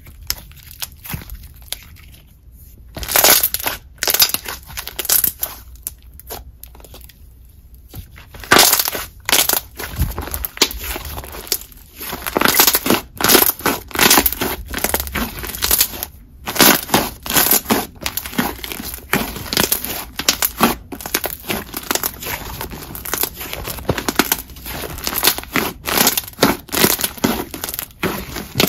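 Hands squishing, folding and pressing a thick jelly slime, giving wet crackling pops. The pops are sparse at first and come in a dense run from about three seconds in.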